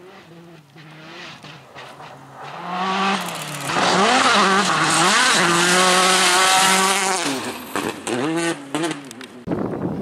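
Rally car engine approaching and passing at full speed, revs climbing and dropping through gear changes and lifts, loudest for a few seconds in the middle before fading away with a few short blips of throttle. About half a second before the end the sound cuts to a different steady rushing noise.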